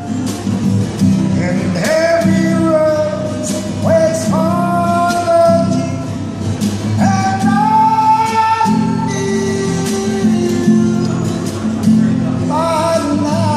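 A man singing to his own guitar strumming: steady strummed chords under long sung notes that slide up into each pitch and are held for a second or two.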